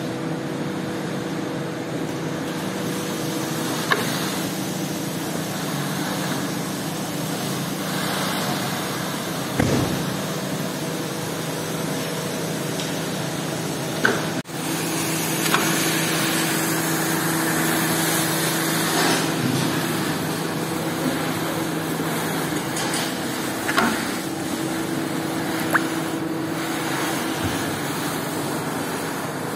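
Rug-washing machine's two electric motors and worm gearboxes running steadily, spinning scrubbing brushes over a wet, soapy rug, with a wet swishing noise. A few sharp knocks stand out from the steady hum.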